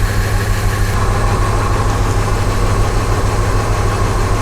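Truck engine idling with a misfire, running steadily on only some of its cylinders; the cylinder drop test finds three of its cylinders dead.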